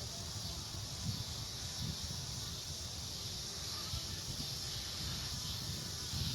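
Outdoor ambience: wind buffeting the microphone in an uneven low rumble, over a steady high hiss.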